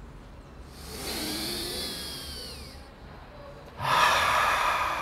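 A man breathing in audibly through the nose for about two seconds. A little under four seconds in, he breathes out forcefully through the open mouth: the 'fire' or 'dragon' breath of a breathing exercise.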